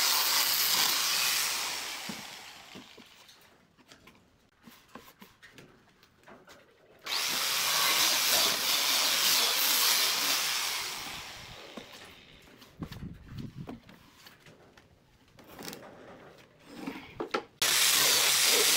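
Angle grinder with a sanding pad running against pine pallet wood, then switched off and spinning down about two seconds in. After a few seconds of light knocks it starts abruptly again, runs and winds down, and starts once more near the end.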